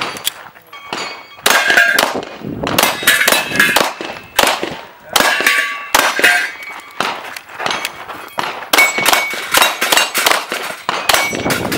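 Rapid 9mm pistol shots fired in quick strings at steel targets, with the metallic clang and ring of the steel plates and poppers being hit.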